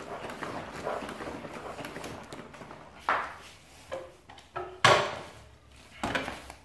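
Faint scraping, then four separate knocks with short creaks, the loudest about five seconds in, from the Yamaha WR250F's front fork being worked during cleaning of its leaking fork seal.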